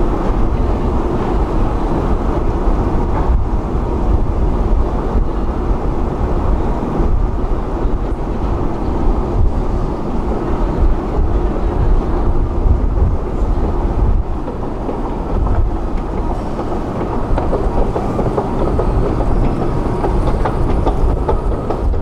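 Metro escalator running while being ridden upward: a steady low mechanical rumble from its moving steps and drive. A few light clicks come near the end as the top landing is reached.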